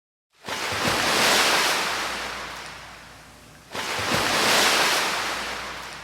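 Two big sea waves breaking one after the other, each a loud rush of surf that fades away over about three seconds, with a low wind rumble on the microphone underneath.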